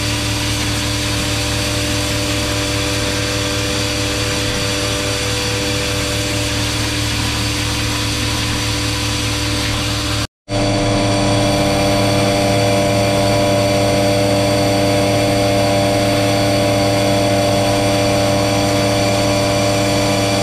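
Grain vacuum running steadily while pulling soybeans out of a bin: a constant mechanical drone with a steady multi-tone whine. It cuts out for an instant about ten seconds in.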